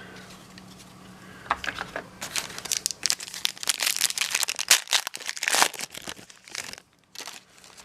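Plastic wrapper of a Donruss baseball card pack crinkling as it is torn open and pulled off the cards: a rapid irregular crackle lasting several seconds, with one short last crinkle near the end.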